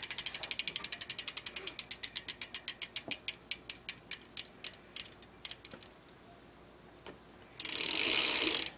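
Freewheel on a BMX rear hub clicking as the wheel coasts, the pawl clicks coming fast at first, then slowing and spreading out until they stop about six seconds in; the freewheel is worn, described as pretty shot. Near the end comes a brief loud rushing noise.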